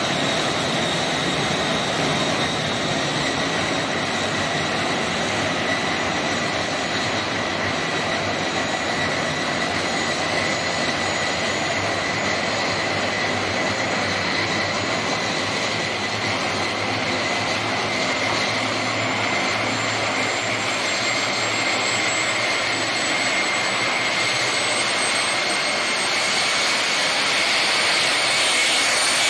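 Homemade turbojet engine, built from a Holset HX turbocharger, running on a jet kart: a steady rushing exhaust noise with a high whine. Near the end the whine slowly climbs in pitch and the sound grows louder as the engine spools up.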